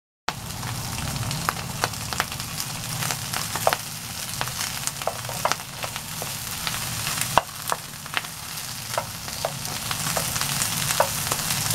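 Eggplant, carrot and green pepper sizzling in oil in a frying pan while a wooden spatula stirs them, with frequent taps and scrapes of the spatula on the pan. A sharper knock comes about seven seconds in.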